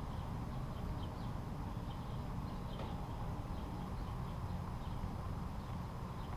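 Outdoor background: a steady low rumble with faint, short high chirps scattered throughout, like small birds.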